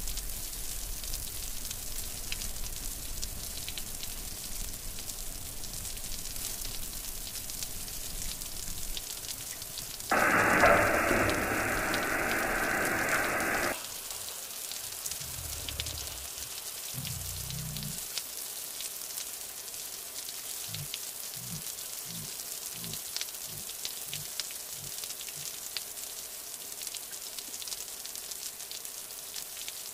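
Steady rain pattering on tent fabric, with faint ticks throughout. About ten seconds in, a much louder rushing noise starts abruptly, runs for about three and a half seconds and stops just as suddenly.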